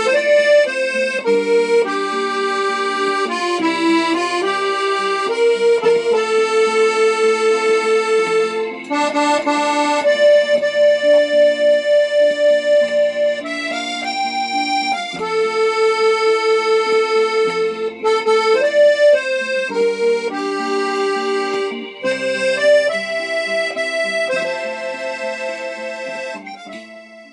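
Instrumental background music: a melody over held chords with a fast wavering pulse in loudness, fading out at the end.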